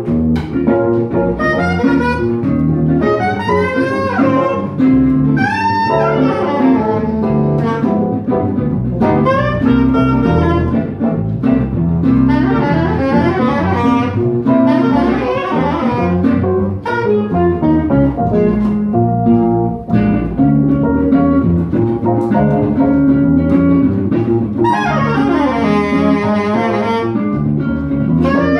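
Small live jazz group playing: soprano saxophone leading with quick melodic runs over upright double bass, Nord electric piano and acoustic guitar.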